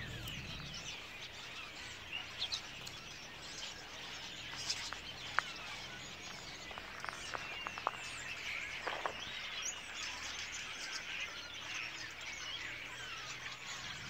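A large number of birds chirping and calling at once in a tree, making a dense, continuous chatter of overlapping short chirps and whistles. A few sharper clicks stand out in the middle.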